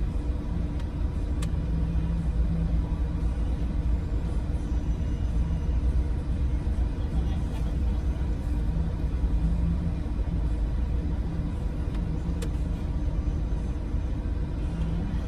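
Ford Everest engine idling at about 800 rpm, heard from inside the cabin as a steady low rumble. There are two faint clicks, one early and one near the end.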